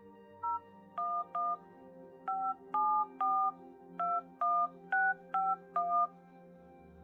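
Telephone keypad tones (DTMF): a phone number is keyed in digit by digit, about eleven short two-tone beeps in uneven groups. The number is being entered after a calling-card service's prompt to dial the destination number.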